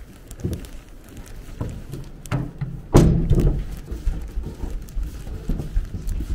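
A series of irregular thumps and knocks, the loudest a sharp thump about three seconds in.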